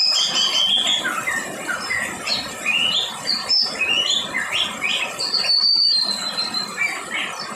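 Rain falling as a steady hiss under a dense chorus of birds chirping and calling in quick rising and falling notes. About five seconds in, one bird holds a longer whistled note that falls slightly in pitch.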